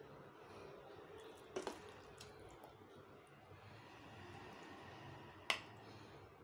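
Faint sounds of a steel spoon placing thick vermicelli idli batter into a stainless-steel idli plate: soft wet squelches and a few light clicks of spoon on steel, the sharpest about five and a half seconds in.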